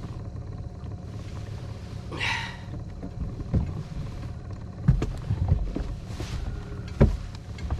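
Boat motor running steadily at a low hum, with a few sharp knocks and thumps on the boat, the loudest about five and seven seconds in.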